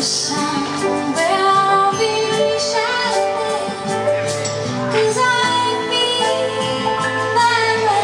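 A woman singing with grand piano accompaniment that she plays herself: long held vocal notes with a slight waver over sustained piano chords.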